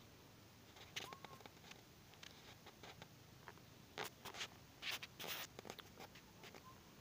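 Quiet outdoor background broken by soft, scattered rustles and scrapes: one about a second in, then a cluster between about four and five and a half seconds in.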